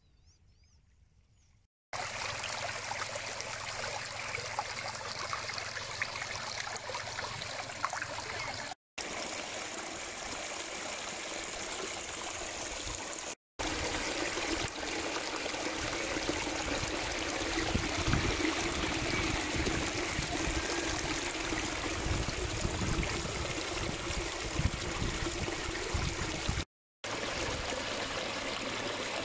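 Flash-flood rainwater rushing down a desert wadi and pouring over a low rock ledge in a broad cascade. It is faint for the first two seconds, then a steady rushing and splashing comes in, broken by brief dropouts at the cuts between takes.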